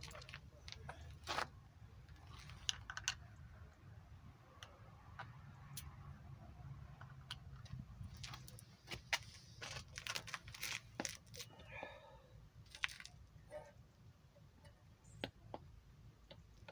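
Scattered light clicks and taps of a hand-squeezed brake-fluid vacuum pump and its hose being handled, thickest in the middle, over a low steady rumble.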